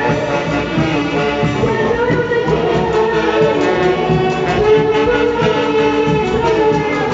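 Band music from a Mantaro-valley orquesta típica, with wind instruments carrying the melody over a steady beat.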